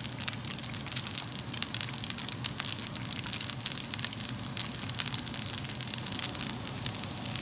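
Rice frying in a nonstick pan in the oil left from cooking shrimp: a steady sizzle thick with small crackles and pops.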